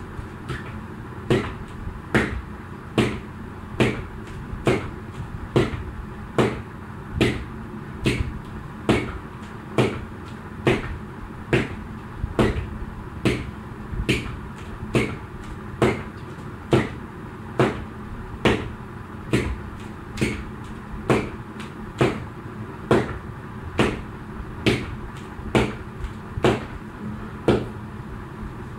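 Jump rope slapping the floor on each turn during skipping, a sharp smack a little more than once a second, over a steady background hum.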